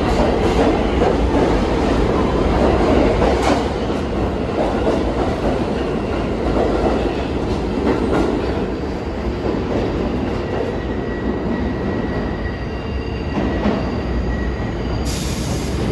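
A New York City Subway R62 train on the 3 line pulling out of an underground station: a steady rumble of wheels and running gear with scattered rail clicks, slowly fading as the train moves away. A faint, thin high tone sounds in the later seconds.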